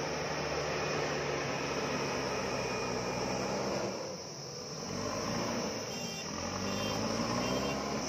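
JCB backhoe loader's diesel engine running under load as the front bucket pushes soil. The engine note drops about four seconds in, then rises again as it revs back up.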